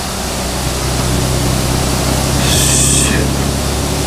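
Steady rumble and low hum of a moving freight truck, heard from inside the closed cargo trailer, with a brief hiss about two and a half seconds in.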